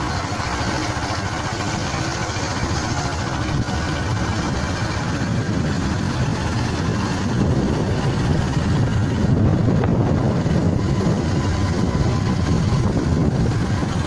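Steady engine and road noise with wind rumble, heard from on board a moving vehicle, growing a little louder about seven seconds in.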